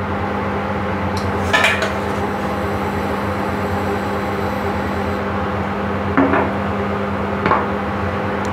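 Ground pepper being shaken from a plastic shaker onto minced pork in a ceramic bowl, with a sharp clink about a second and a half in and two lighter knocks near the end as the shaker and spoon touch the bowl. A steady hum runs underneath.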